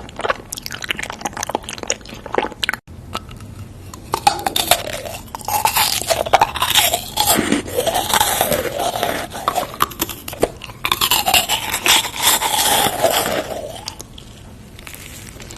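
Close-up eating sounds: a person biting and chewing crunchy food, with dense crackling crunches that get louder and busier through the middle and ease off near the end.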